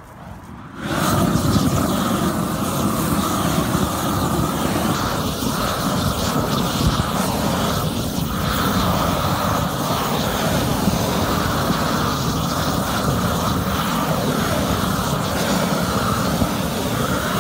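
Propane roofing torch burning with a loud, steady roar, which comes on suddenly about a second in as the flame is opened up, while it is swept over the tar surface around the drain.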